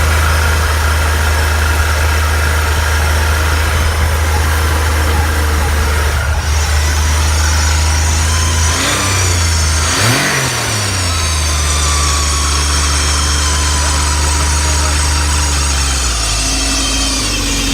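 Ski-Doo Skandic SWT snowmobile's 900 ACE three-cylinder four-stroke engine idling and revved briefly about ten seconds in. From about six seconds in a thin high-pitched squeal rides over it: the squealing noise whose cause the owner cannot find.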